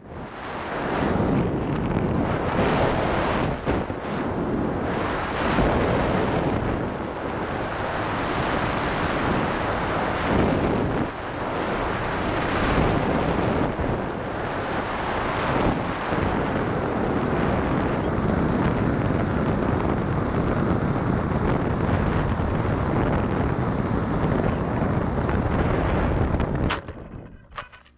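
Airflow buffeting the microphone of a camera mounted on a large RC sailplane as it descends with its butterfly (crow) brakes deployed: a loud, surging wind noise. Near the end the noise drops away as the glider touches down on grass, with a couple of short knocks as it settles.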